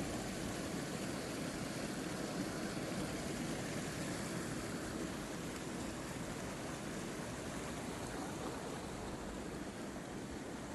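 Steady rushing noise with no distinct events, easing slightly toward the end.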